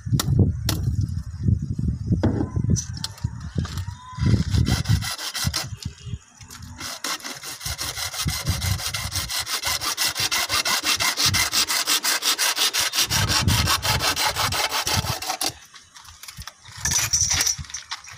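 A hacksaw cutting through a plastic water pipe with fast, even strokes, starting about five seconds in and stopping about three seconds before the end. Before the sawing, the pipe and fittings knock and bump as they are handled.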